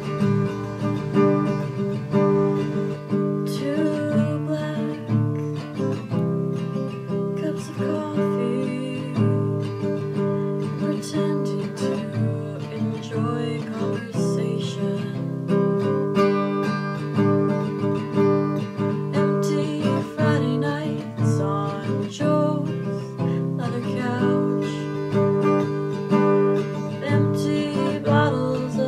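Acoustic guitar strummed at a slow tempo.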